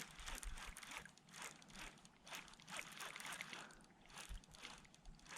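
Faint, repeated soft swishes of water around a kayak on calm water.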